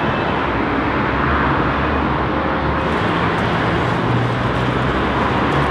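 Steady city traffic noise, an even rumble of road vehicles, with a low engine hum growing stronger through the middle.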